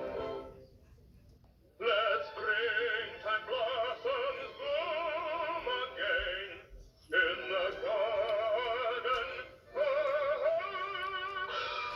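Cartoon character singing in an operatic style with a wide, wavering vibrato over orchestral accompaniment. The phrases begin about two seconds in after a brief quiet gap and are broken by short pauses.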